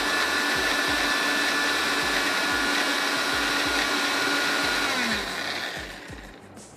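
Electric blender running steadily as it blends a thick tamarind and date chutney, then switched off about five seconds in, the motor whine falling as it spins down.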